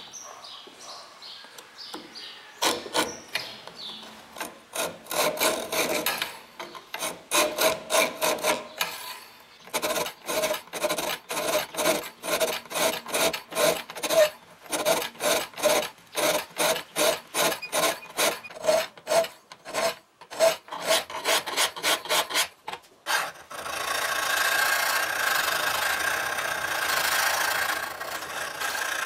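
Flat hand file scraping back and forth along the bevel of a 5160 steel knife blade held in a vise with a file guide, about two strokes a second with a faint ring on each stroke. About three-quarters of the way through the strokes stop and a steady hiss with a faint hum takes over.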